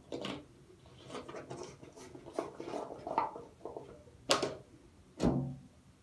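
Quiet handling of a plastic bottle and a plastic mug: faint scrapes and small clicks, with two sharper knocks near the end.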